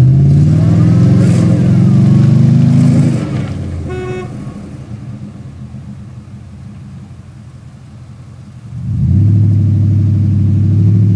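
A truck engine revs hard under load while trying to pull a stuck SUV out of the mud, its pitch climbing over about three seconds before it drops back. A short horn beep comes about four seconds in. A second hard, steady rev starts about nine seconds in.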